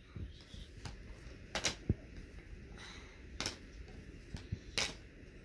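Cardboard puzzle pieces being handled and set down, giving several light, sharp clicks and taps a second or so apart over quiet room tone.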